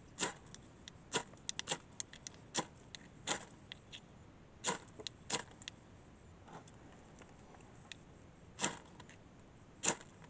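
A steel scraper is struck down a magnesium fire-starter rod again and again, over a dozen short rasping scrapes at uneven intervals, throwing sparks onto wood shavings. The two strokes near the end are longer and louder than the rest.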